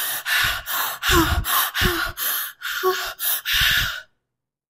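A woman panting in a quick run of short, breathy, gasping breaths, a few with a brief voiced catch, performed as a demonstration of sexy panting in bed. It stops suddenly about four seconds in.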